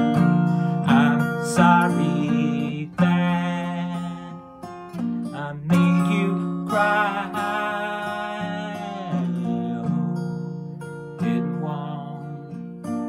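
Steel-string acoustic guitar strummed in a slow chord pattern, with a man's voice singing long, wavering phrases over it.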